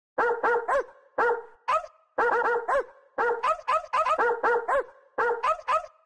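Dog barking in quick runs of short, high-pitched barks, two to five at a time with brief pauses, about twenty barks in all.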